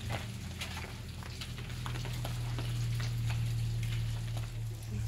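Water splashing and dripping onto wet ground as it is poured from a plastic jug over a person's hands, many small irregular drops and ticks, over a steady low hum.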